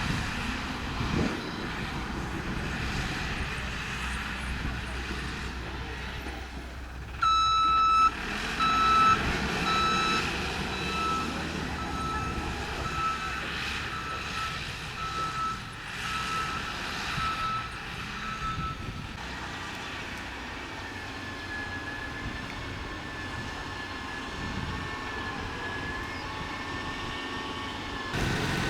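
Diesel engine of heavy road-construction equipment running steadily. About seven seconds in, a reversing alarm sounds: one held tone, then regular beeps for about ten seconds as the machine backs up.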